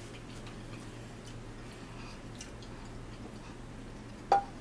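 Faint scattered small clicks over a steady low hum. Near the end comes one sharp clink of a dinner plate being set down on the table.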